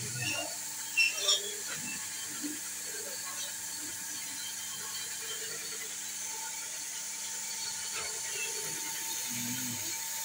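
Steady faint hiss and hum with a thin high tone, and two short knocks about a second in as a freshly stamped soap bar is lifted out of the stamping press die and handled.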